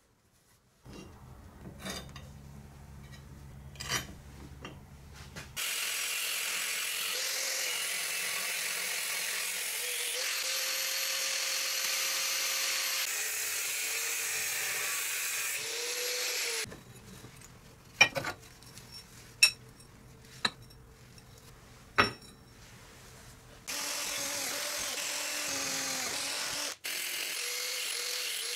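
Metalworking with an electric power tool, run in two long steady stretches, with small clicks before it and four sharp metal knocks in the quieter part between the stretches.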